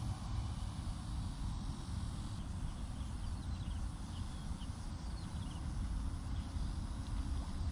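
Outdoor ambience: a steady low rumble, with a few faint, short, falling bird chirps in the middle.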